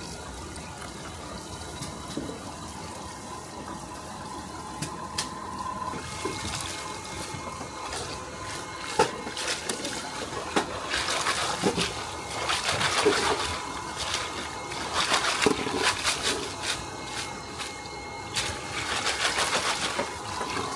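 Water splashing and trickling, with scattered clicks and clatter; the splashing grows louder and comes in irregular surges about halfway through.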